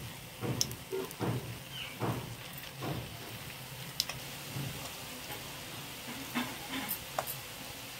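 Battered green chillies deep-frying in ghee in a kadhai: a steady sizzle. It carries several soft low thumps in the first three seconds and a few sharp crackles near the end.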